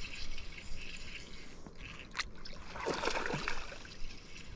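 Hooked bass splashing and thrashing at the water's surface while being played on a spinning rod, loudest in a short burst about three seconds in.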